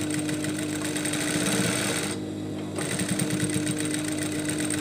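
Table-mounted sewing machine with a binder attachment running, stitching bias tape into a strap with a fast, even needle rhythm over a steady motor hum. The stitching breaks off for about half a second a little over two seconds in, then resumes while the hum carries on.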